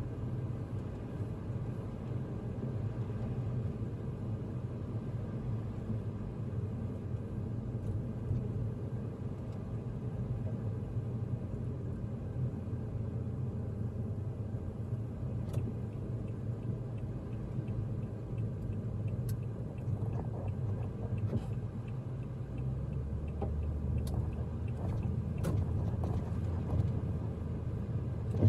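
A vehicle driving, with a steady low rumble of engine and road noise. About three-quarters of the way through, the low hum shifts lower in pitch. A few faint ticks are scattered through the later part.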